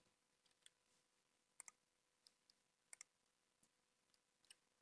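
Faint computer mouse clicks, several of them quick double clicks, over near silence.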